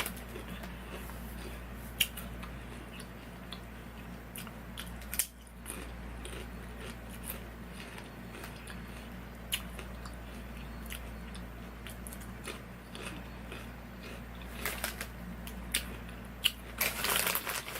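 A person crunching and chewing wavy potato chips: scattered sharp crunches, growing denser near the end, over a steady low hum.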